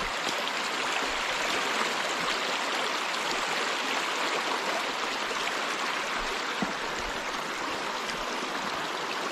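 Steady rushing of flowing creek water, with one small tick about six and a half seconds in.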